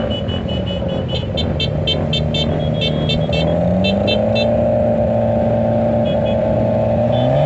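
Motorcycle engines running in a large group, the engine note rising a little about four seconds in and again near the end. A high-pitched beeping repeats about four times a second over the first half.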